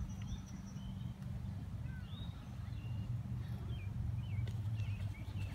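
Birds chirping in short, scattered calls over a steady low hum of outdoor background noise.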